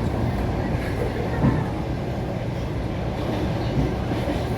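Passenger train running along the line, heard from inside the carriage: a steady rumble of wheels on the rails, with two sharper knocks of the wheels.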